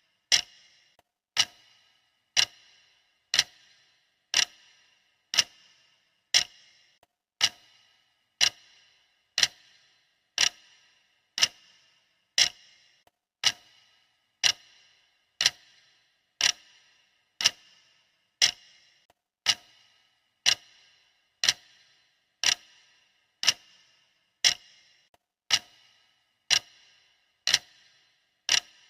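Clock ticking steadily, one sharp tick a second, each with a short fading tail.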